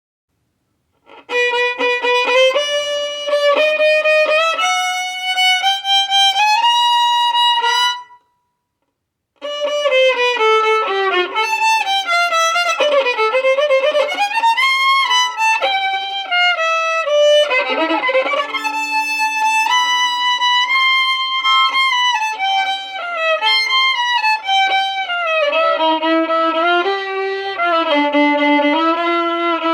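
Solo violin playing a slow melody, sometimes in two voices at once. It stops for about a second near the eight-second mark, then goes on.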